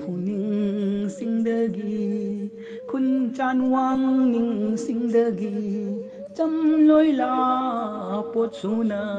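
A voice singing a slow, chant-like melody in long held notes with a wavering pitch, pausing briefly between phrases.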